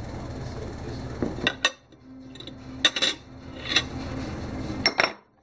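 A table knife and dishes clinking, with several short sharp clinks spread over a few seconds while butter is spread on toast.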